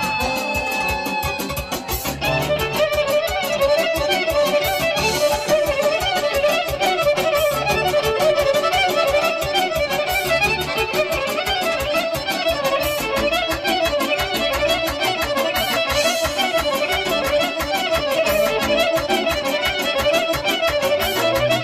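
Lively traditional dance music with violin and accordion playing a fast melody over a steady, quick beat.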